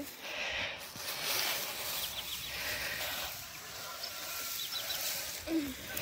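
Rustling and crunching of an armful of dry loose hay being carried, with footsteps on hay-covered ground.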